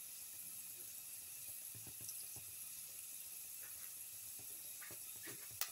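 Sliced shallots and ginger frying gently in hot oil: a soft, steady sizzle with faint scattered crackles, a few sharper pops near the end.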